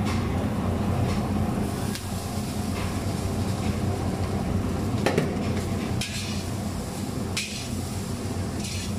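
Cooked rice tipped into a black steel wok and turned with a long metal ladle, the ladle scraping and clanking against the wok a few times. A steady low hum runs underneath.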